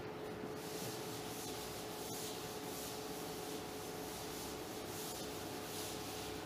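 Chalkboard duster wiping chalk off a blackboard in quick back-and-forth strokes, a soft, steady scrubbing hiss, with a faint steady hum underneath.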